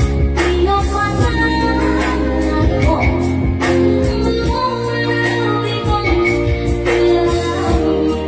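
Live Batak song: voices singing held, melodious lines over electronic keyboard accompaniment with a steady percussive beat.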